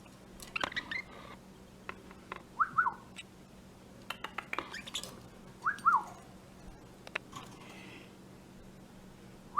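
A bird calling: short paired chirps that slide downward, repeated about every three seconds, with scattered sharp chips in between.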